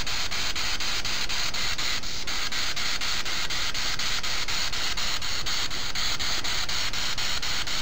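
Spirit box sweeping through radio frequencies: a steady static hiss broken by rapid regular clicks, about four or five a second, as it steps from channel to channel.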